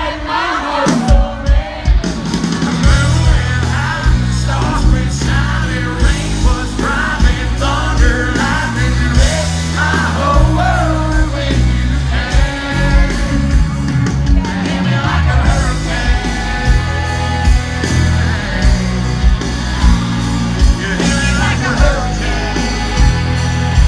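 Live country-rock band with a male lead singer, recorded from within the crowd. The bass and drums come in about two seconds in under the vocal and guitars.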